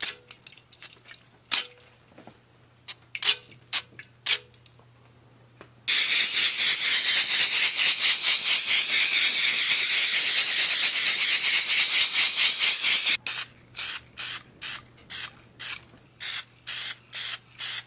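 Aerosol spray-paint can spraying: a few short taps and puffs, then one long continuous spray of about seven seconds, then a quick run of short puffs.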